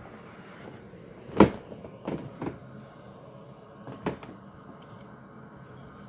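Horizontal window blinds being pulled up, the slats and rail knocking: one loud knock about a second and a half in, then three lighter ones.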